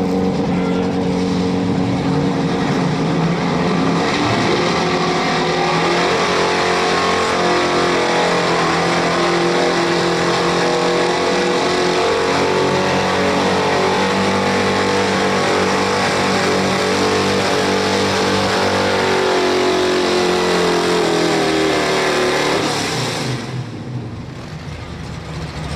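Square-body Chevrolet pickup's engine at full throttle pulling a truck-pulling sled. It revs up about four seconds in and holds high under load. Its pitch sags as the sled bears down near the end, then the engine drops off to a lower, quieter run.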